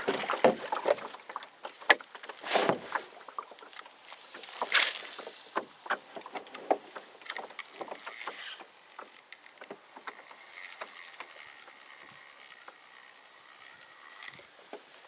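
Water splashing and sloshing around a small fishing boat, with scattered light knocks and clicks, in two louder washes early on. It then settles to quiet lapping with a faint steady high tone.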